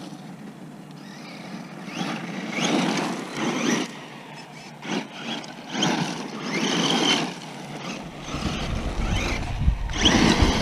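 Redcat TR-MT10E 1/10-scale electric RC monster truck running on a 2S battery over loose dirt: about four throttle bursts of motor whine rising in pitch, with tyres scattering dirt. A low rumble comes in near the end as the truck comes close.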